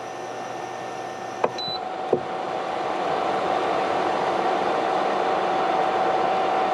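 A pot of water at a rolling boil on a portable induction cooktop, with the cooktop's cooling fan whirring and a steady hum. About a second and a half in there is a click and a short beep as the cooktop is switched off, then another click; the fan keeps running to cool the unit.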